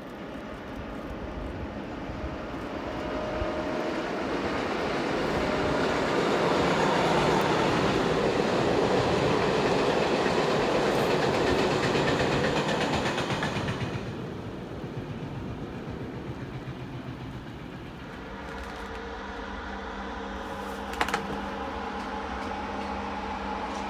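A freight train hauled by a Siemens electric locomotive passing on the rails: wheels clattering and wagons rumbling, growing louder over the first several seconds and fading a little past halfway. Then a steady humming whine from a slow-moving electric locomotive, with a single sharp click near the end.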